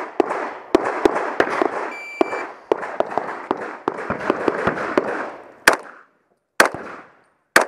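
CZ Scorpion EVO 3 S1 9mm carbine fired in quick semi-automatic strings, the shots echoing off the quarry walls and blurring together for the first six seconds. Near the end come three single shots about a second apart.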